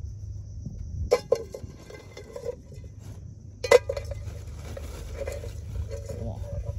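Clatter of cookware: a couple of sharp clinks and knocks about a second in, and a louder one near the middle, over a steady high drone of insects.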